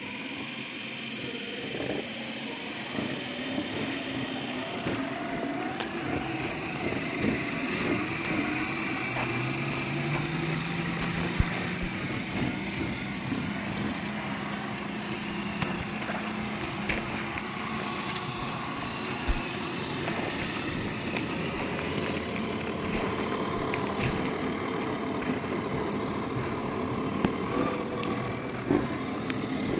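1/10 scale RC crawler trucks (Land Cruiser 70 and 80 models) driving slowly over dirt and gravel: a steady motor sound that rises in pitch about ten seconds in, with occasional sharp clicks from the tyres and chassis on the rough ground.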